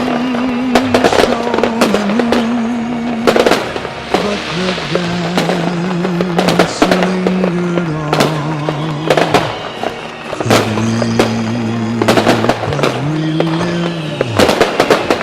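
Fireworks banging and crackling in quick, irregular bursts, over music with a melody that steps up and down.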